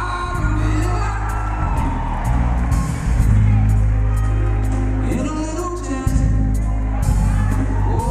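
Music: a singer with a band, over heavy bass and a steady drum beat.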